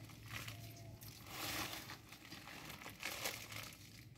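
Hands scooping a dry mix of vermicompost, bone meal and fertilizer granules off a plastic sheet, with soft rustling and crinkling of the plastic in a few short bursts.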